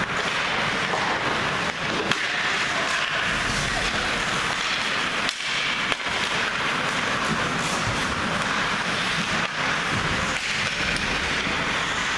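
Ice hockey play: skate blades scraping across the ice and sticks clacking on the puck and each other, over a steady hiss of rink noise, with a few sharper clacks.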